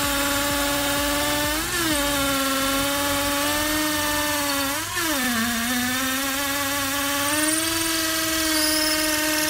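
Bosch 36V cordless drill running at high speed as its bit bores into a block of wood, a steady whine that wavers briefly in pitch twice, about two and five seconds in, as the bit takes load.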